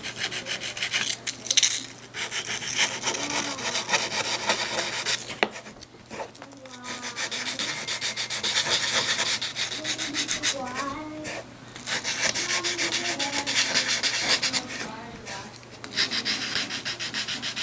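Fast back-and-forth rubbing on the hard plastic shell of a moulded guitar case, worked over the repaired crack in stretches of a few seconds with short pauses.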